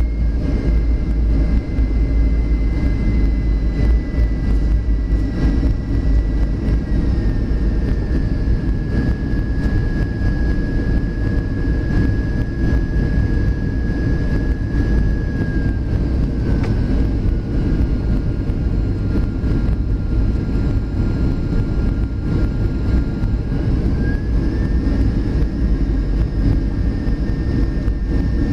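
Boeing 737 cabin noise on the approach: a steady low roar of the jet engines and airflow, with an engine whine that steps down in pitch twice and rises again near the end as engine power is changed during the descent.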